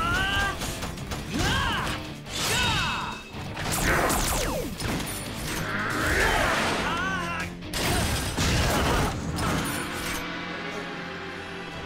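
Cartoon robot-fight sound effects: mechanical whirs that sweep up and down in pitch, clanks and sudden hits, over background music. The effects thin out near the end, leaving steadier music.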